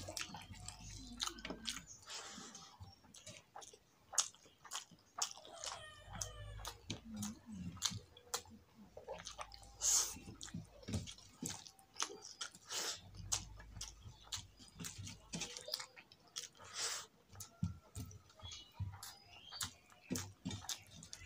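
Open-mouthed chewing and lip smacking of rice and potato curry, many short wet smacks one after another, with fingers mixing the rice on a steel plate.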